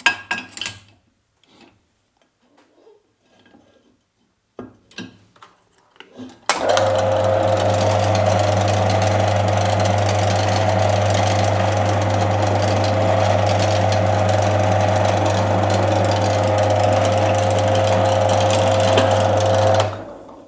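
A few light clicks and knocks of handling, then a drill press switched on about six seconds in. It runs steadily with a deep hum and a steady whine, drilling the holes in a small cross-member piece, and stops shortly before the end.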